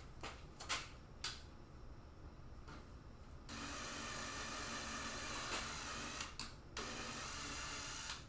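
Power drill running as it bores a hole to break through the panel for the radiator mount, in two runs with a short pause between them. A few light handling clicks come before it.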